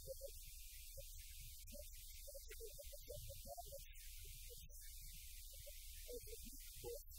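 Steady low electrical hum with hiss, under a faint, muffled man's voice.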